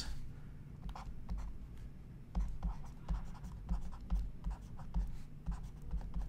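Stylus strokes on a pen tablet as words are handwritten: short, irregular scratching and light tapping.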